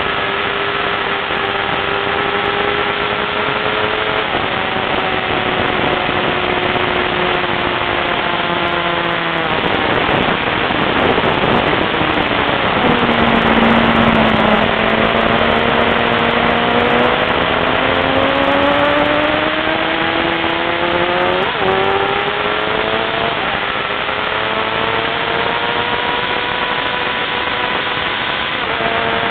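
Car engine running hard on a race track, heard from inside the cabin over heavy wind and road noise. Its pitch holds, falls from about nine seconds in to a low point for a few seconds, then climbs steadily as the car accelerates, with a brief flick in pitch about twenty-two seconds in.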